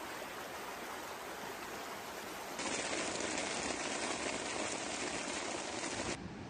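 Steady rush of floodwater and heavy rain. It cuts abruptly louder and brighter about a third of the way in, then drops back near the end.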